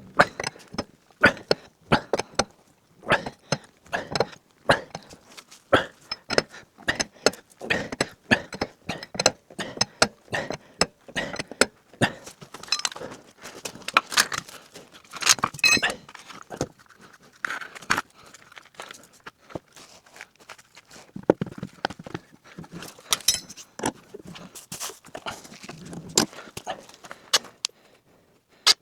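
Irregular metallic clinks and knocks from hand tools and wheel parts being handled, many sharp strikes at uneven intervals.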